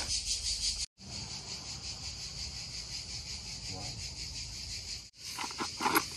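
Insects chirping in a steady high-pitched band, pulsing about five times a second at first. The sound breaks off for a moment about a second in and again near the end, where a few knocks begin.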